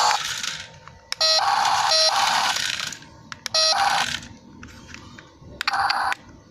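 Mini 1:43 RC truck's built-in sound module playing short electronic truck sound effects through its small speaker, in four separate bursts that each start with a click and stop abruptly.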